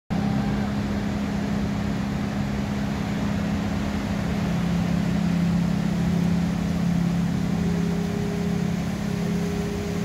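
Steady wash of ocean surf with a low, steady hum running through it; a second, higher tone joins about seven and a half seconds in.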